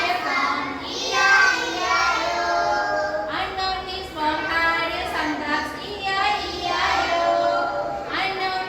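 A group of young children singing together in unison, in phrases that break every second or two.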